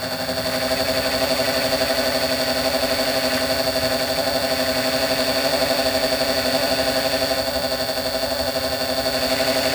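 Small lathe running steadily at low speed with a constant motor hum and whine, as it turns a dog point onto a small steel grub screw.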